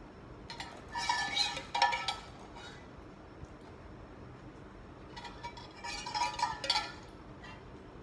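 Cutlery clinking against dishes in two short bursts of several ringing clinks, one about a second in and another about five seconds in.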